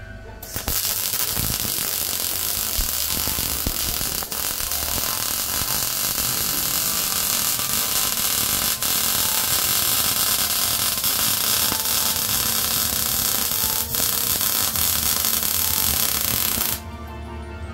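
Arccaptain MIG 200 welder laying a continuous MIG bead, joining a steel tube to a steel plate. The arc gives a steady crackling hiss that starts about half a second in and cuts off suddenly near the end.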